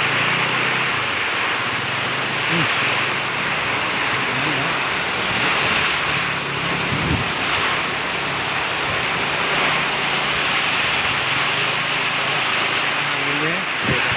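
Heavy rain pouring steadily in strong wind, a dense, unbroken hiss.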